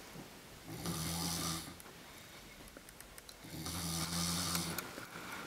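A man snoring heavily in his sleep: two long snores of about a second each, roughly three seconds apart, each a low buzz with a hissing rasp.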